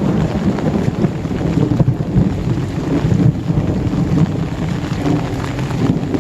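Very heavy rain pouring down: a loud, steady rushing noise, heavy in the low range, with scattered sharp drop hits.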